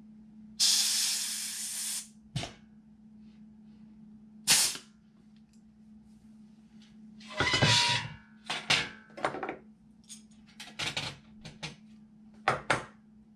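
Pneumatic rivet squeezer hissing for about a second and a half as it squeezes a solid rivet, with a shorter hiss a few seconds later. Then a run of light clinks and knocks as the aluminium spar and the squeezer are handled and set down on the workbench.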